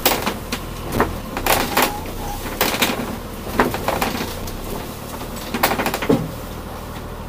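Subaru Libero microvan jolting over a rutted dirt track, heard from inside the cab: irregular knocks, clunks and rattles from the body and fittings over a low, steady engine hum.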